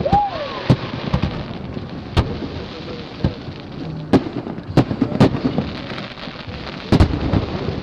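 Aerial fireworks shells bursting, with sharp bangs about once a second over a continuous crackle and rumble from the display.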